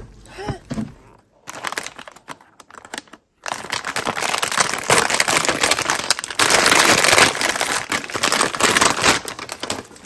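Plastic and foil snack packaging crinkling loudly as it is handled, beginning suddenly about three and a half seconds in. Before that there are a few light clicks and rustles of cardboard packaging.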